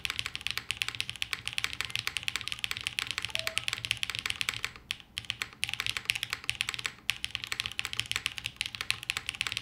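Fast typing on a Martingale custom mechanical keyboard, built plateless with Gateron Summertime linear switches and GMK Foundation keycaps: a quick, dense run of key clacks that breaks off briefly about five seconds in and again near seven seconds.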